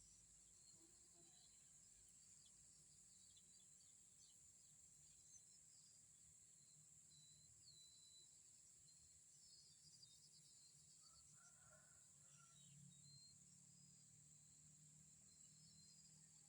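Near silence: faint outdoor ambience, a steady high insect drone with a few faint bird chirps.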